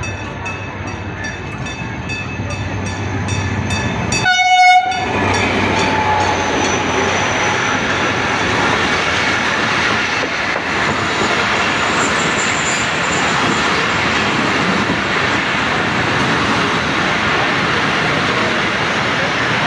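Pakistan Railways passenger train running in along the platform: the locomotive sounds one short horn blast about four seconds in. The coaches then pass close by with a steady loud rumble of wheels on the rails.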